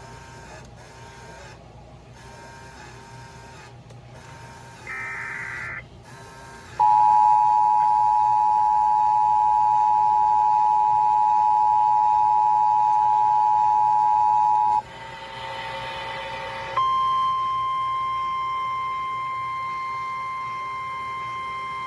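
Midland WR-300 NOAA weather radio sounding a tornado warning alert: a short burst of digital SAME header data tones about five seconds in, then the loud eight-second two-tone emergency attention signal. After a brief noisy stretch, a steady single alarm tone takes over and keeps going, slowly getting quieter.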